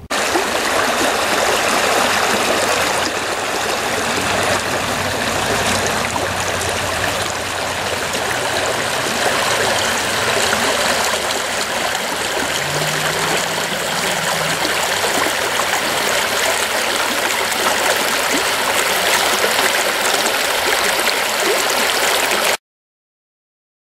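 Shallow rocky creek rushing and burbling over stones, a steady full-bodied water noise that cuts off abruptly near the end.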